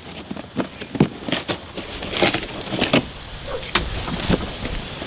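Cardboard box being opened: packing tape slit with a utility knife and the taped cardboard pulled apart, giving a string of irregular sharp scrapes, cuts and short rips.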